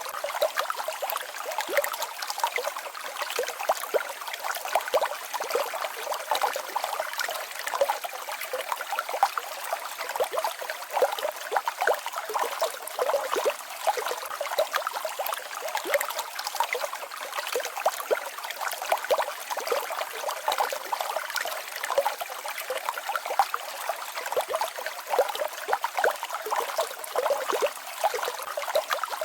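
Small waterfall and babbling stream: water splashing and trickling over rocks in a steady stream of small splashes, mostly in the middle and high pitches with little low rumble.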